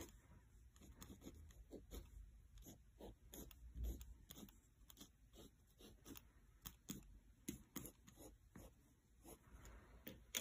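Faint scratching of a pen on sketchbook paper in many quick short strokes, with a soft knock about four seconds in.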